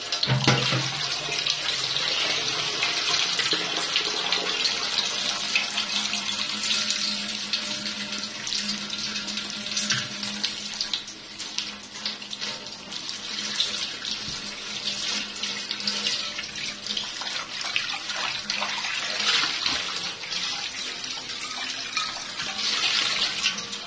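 Tap water running into a steel pot in a stainless steel sink and splashing over it while it is scrubbed by hand, with scattered small knocks and clinks.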